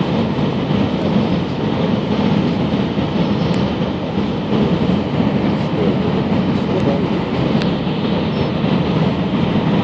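Steady rumble of an Airbus A319-111 on final approach, heard inside the cabin: its engines and the rush of air over the extended flaps.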